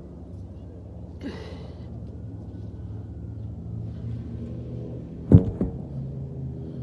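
A heavy tractor tire, flipped over, lands flat on grass with a sharp thud about five seconds in, then a smaller thud as it bounces. A short hissing burst comes about a second in as the tire is heaved up, over a steady low hum.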